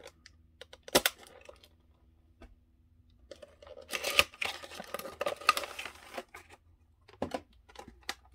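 Action figure packaging being opened by hand: a sharp click about a second in, then about three seconds of tearing and crinkling starting around three seconds in, and a few more clicks near the end.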